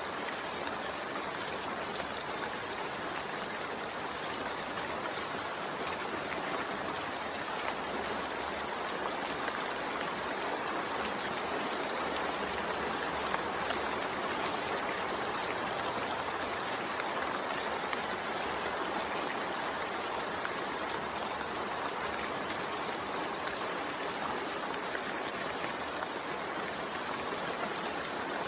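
Steady rain falling, a continuous even hiss with no breaks or single drops standing out.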